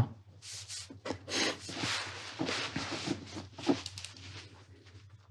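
Irregular rustling and rubbing noises close to the microphone for about three and a half seconds, fading out near the end.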